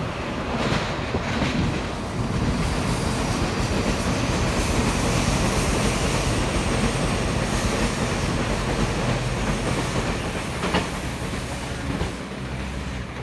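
Electric commuter train running past fast on the tracks, a steady rumble of wheels on rail with a few sharp clicks about a second in and again near the end.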